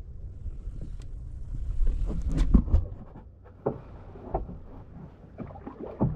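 Kayak paddling: the paddle dipping and splashing in the water in uneven strokes, with a few sharp knocks. Wind rumbles on the microphone, heaviest in the first half.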